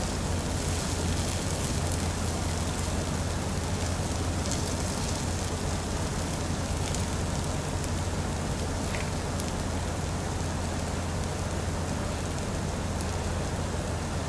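Steady sizzling of pork-belly and green-onion-kimchi fried rice on a hot grill pan, over a low hum, with a few faint taps of the spatula or chopsticks.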